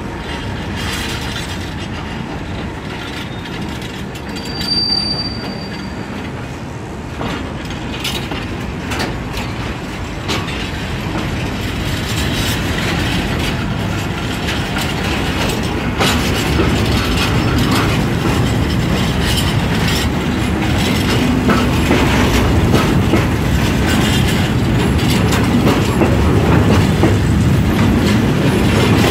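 Empty timber stake wagons rolling past close by, their wheels clattering over the rail joints, with a brief high wheel squeal about five seconds in. The rumble grows louder toward the end.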